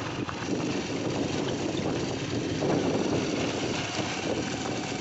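A motorcycle running along a road, heard from the pillion seat, with wind rushing over the microphone.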